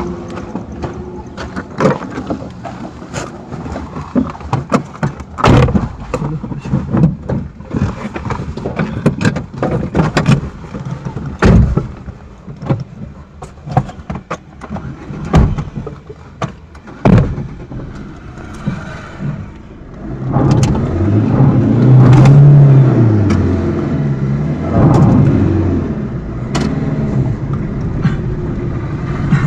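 Scattered knocks, clicks and door thumps as people get into a car, then about two-thirds of the way in the car's engine starts and revs up and back down before running steadily.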